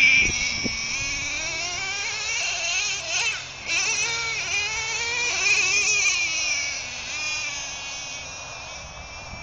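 Nitro RC truck's small two-stroke glow engine running at a high, whining pitch that rises and falls repeatedly as it is throttled, growing fainter as the truck drives farther off.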